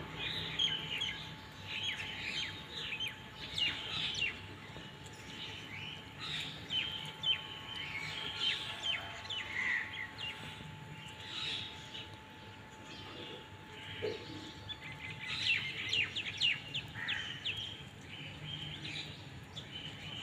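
Small birds chirping: many quick, high, falling chirps, some coming in rapid clusters.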